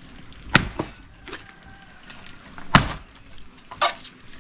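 Machete chopping and splitting an old wooden board: three hard blows with lighter strikes between them, the loudest nearly three seconds in, with the wood cracking and splintering.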